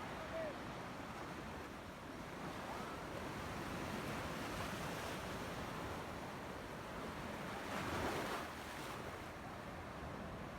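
Sea waves washing in, a steady rushing wash with one wave swelling louder about eight seconds in.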